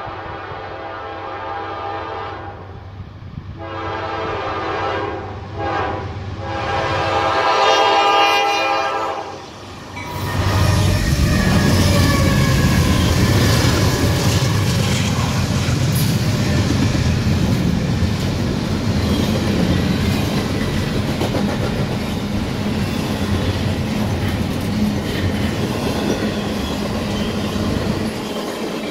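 Norfolk Southern freight train's air horn sounding three blasts, the last the longest, as it approaches a grade crossing. About ten seconds in, the three diesel locomotives pass close by, loud, and are followed by the steady rumble and wheel clatter of intermodal cars carrying trailers.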